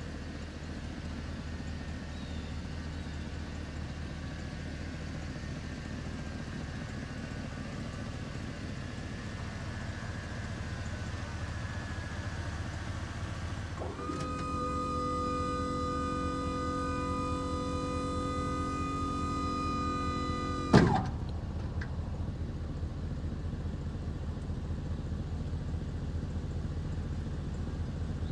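Steady low rumble of a truck engine idling. About halfway through, a steady motor whine starts abruptly, runs for about seven seconds and stops with a sharp clunk.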